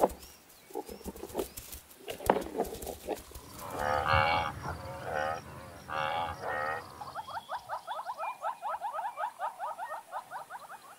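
Sharp clicks and knocks. Then, about four seconds in, Cape buffalo low in several drawn-out, wavering calls. From about seven seconds on, a fast trilling animal call repeats at about eight notes a second.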